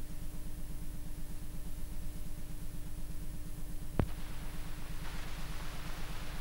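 Low electrical hum and buzz with a fast, even pulsing and a faint steady tone above it; a single sharp click about four seconds in, after which hiss comes up.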